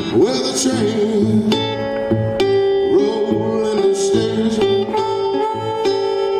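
Live acoustic blues: a harmonica playing long held notes, some bent up into pitch, over a resonator guitar's plucked notes and steady bass beat.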